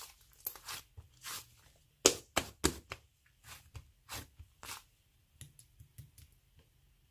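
Slime being handled and pressed by hand, giving a run of short, sharp crackles and pops at an uneven pace. The loudest cluster comes about two seconds in, then they grow fainter and stop near the end.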